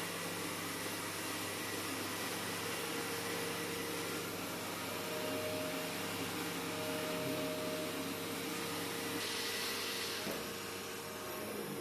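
Robot vacuum cleaner running with a steady whir and faint humming tones, with a slightly brighter hiss for about a second near the end.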